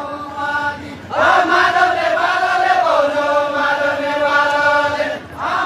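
Men singing a Deuda folk song of far-western Nepal, voices only: a soft phrase, then about a second in a loud sung line rises and is held as one long, slowly falling note until it breaks off near the end.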